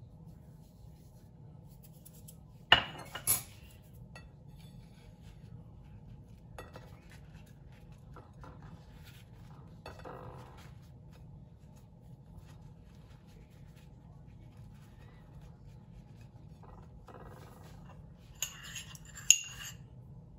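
Ceramic dishware clinking: two sharp clinks about three seconds in and a few more near the end. Between them, soft rustling as a thin spring-roll wrapper is folded around a banana.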